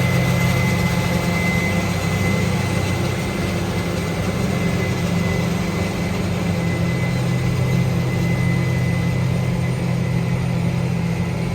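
Large diesel engine of field machinery running steadily, with a thin steady high whine over its low hum.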